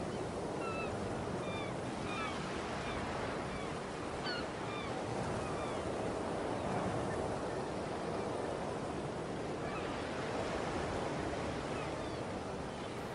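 Ambient recording of ocean surf: a steady wash of waves that swells slightly midway. Short high chirps come and go over it, mostly in the first few seconds.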